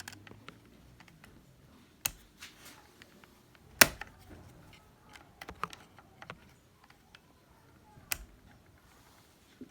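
Irregular sharp clicks and taps of plastic and metal parts as the on/off switch and its lever are worked back into a Milwaukee 4½-inch angle grinder's housing, with a few louder snaps, the loudest about four seconds in.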